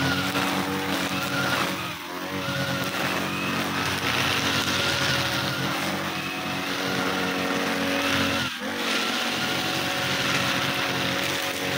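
Backpack brush cutter engine running at high throttle while its spinning nylon line sweeps cut grass and leaves off a concrete road. The engine briefly eases off and picks up again about two seconds in, and again about two-thirds of the way through.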